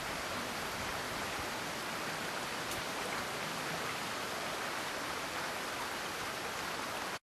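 Steady rushing hiss of a running stream, cutting off suddenly near the end.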